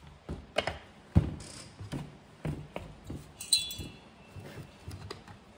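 Workbench handling of a chainsaw cylinder and a plastic oil bottle: a series of knocks and clicks as parts are picked up and set down, the loudest a little over a second in, with a short ringing clink about three and a half seconds in.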